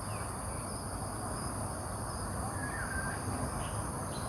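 Steady outdoor ambience: a constant high-pitched insect drone over a low rumbling noise, with a faint short chirp about two and a half seconds in.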